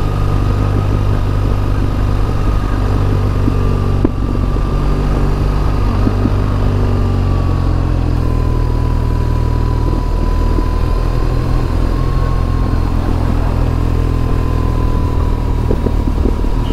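2006 BMW R1200GS's boxer-twin engine running steadily under way, its pitch dipping slightly about eight seconds in.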